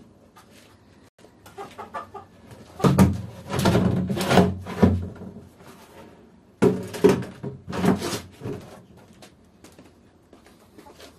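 Cut-open plastic jerrycans being set down and shifted on the floor: two bouts of hollow knocks and scraping, the first about three seconds in and the second just past halfway. Chickens cluck in the background.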